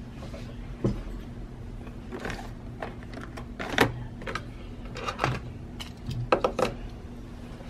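Handling of craft supplies on a work table: a scattering of short clicks and knocks, a few in quick clusters, over a steady low hum.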